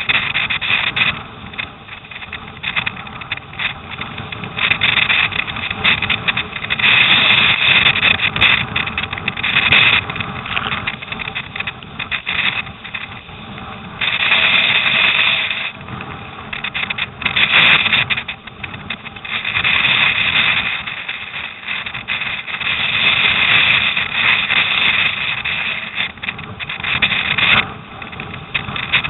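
Rushing, splashing water and spray around a surfski's bow as it surfs down storm waves, with wind buffeting the microphone. The noise swells and falls back in surges every few seconds.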